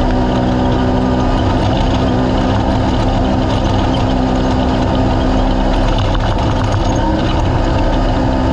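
Race UTV's engine running loud and close at a steady, unchanging pitch, over a constant rushing noise.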